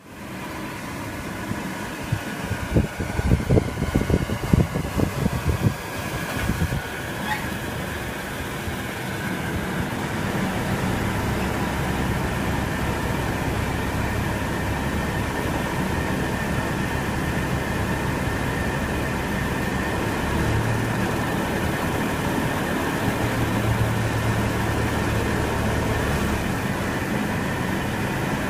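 TurboAir DH1021ES motor running with a steady hum and a rumbling vibration, an abnormal noise taken to be a motor fault. A burst of rattling knocks comes a few seconds in, then the hum settles.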